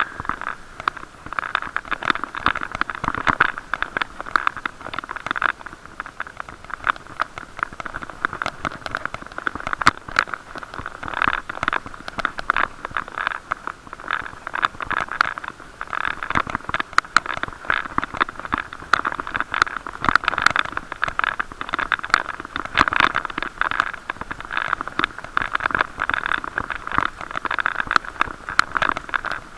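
Continuous crackling and scraping noise from a bicycle ride, picked up through an action camera's waterproof case. Road vibration and wind rub against the housing and make dense little clicks throughout.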